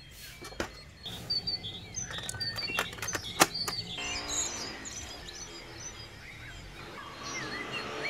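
Small birds chirping over and over. There are several sharp clicks and taps in the first four seconds, the loudest about three and a half seconds in.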